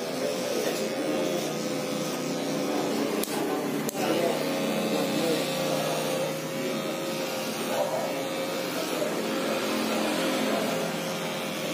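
Electric hair clipper running with a steady buzz as it is worked over a comb, with two short clicks about three and four seconds in.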